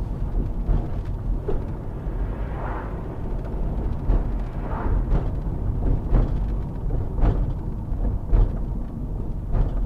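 Low-speed driving noise heard inside a car: a steady low rumble of tyres and engine, with occasional soft knocks and bumps.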